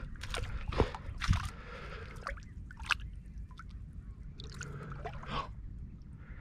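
Hands splashing and sloshing in a shallow, muddy tidal pool while groping for a speared fish, with wet squelches of mud. A few sharp splashes come in the first three seconds, then softer sloshing.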